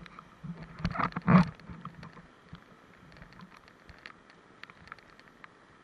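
Kayak in a whitewater rapid: a flurry of knocks and splashes against the boat and camera, loudest about a second and a half in, then a faint muffled rush of water with scattered ticks.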